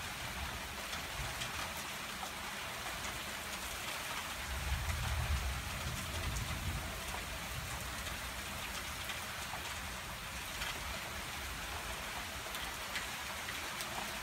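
Heavy rain falling in a thunderstorm, a steady hiss, with a brief low rumble about five seconds in.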